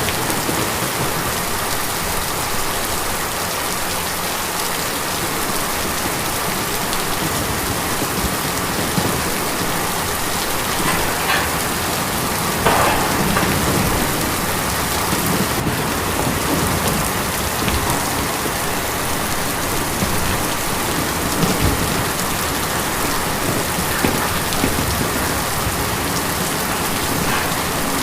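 Steady rain falling on tin: a dense, even patter with scattered louder drop hits.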